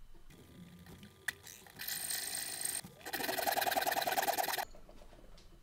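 Small junior hacksaw cutting through a brass square bar held in a vise: quick, even back-and-forth strokes in two bouts, the second one louder, with a short pause between. The owner says the blade is due for replacing.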